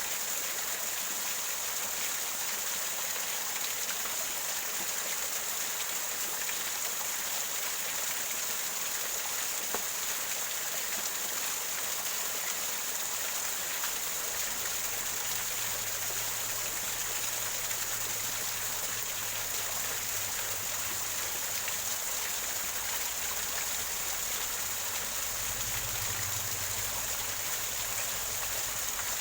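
Water from a small waterfall gurgling and splashing over rocks, a steady, unbroken rush.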